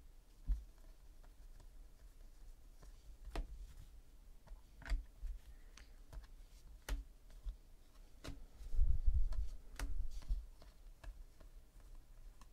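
Football trading cards being flipped through by hand, with a sharp click every second or two as a card snaps off the stack. A louder low rumble of handling comes about eight to ten seconds in.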